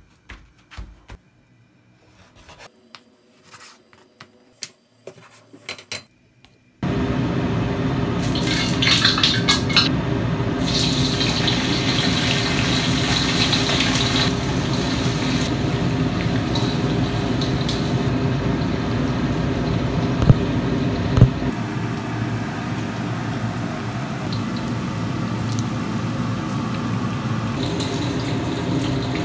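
Bone-in beef short ribs deep-frying in a wok of hot oil: a loud, steady sizzle that starts suddenly about seven seconds in and crackles hardest for the few seconds after. Before it there are only faint rustles and taps of a paper towel being pressed onto the raw meat, and two sharp knocks come a little past the middle of the frying.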